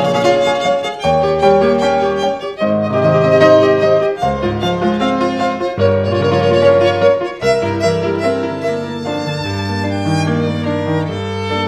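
Violin playing a melody over a steady instrumental accompaniment, with bass notes that change every second or so.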